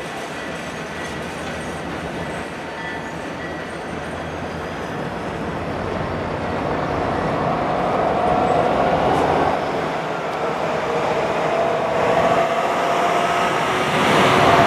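Freight train's boxcars rolling slowly on the rails with a steady wheel rumble. In the second half it grows louder and thin, wavering wheel squeals come in.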